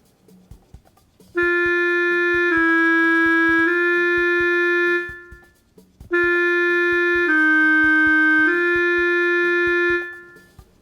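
Electronic instrument sound from the TonalEnergy music app playing two held three-note phrases. Each phrase is a steady tone that steps down for its middle note and returns, with faint regular clicks underneath.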